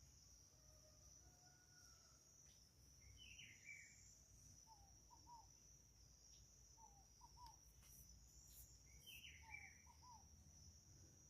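Faint nature ambience: a steady high-pitched insect drone, with a bird repeating a short call of a few notes about every two seconds, and another bird giving a brief falling call twice.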